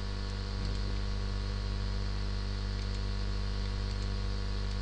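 Steady electrical mains hum with a stack of overtones over a faint even hiss, unchanging throughout.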